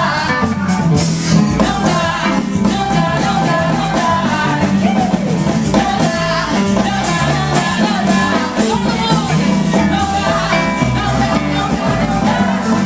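Live band playing upbeat rock music, with electric bass guitar and a singer.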